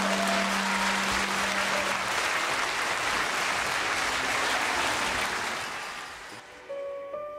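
Audience applauding in a hall, over the orchestra's last held note, which dies away about two seconds in. The applause fades out about six seconds in.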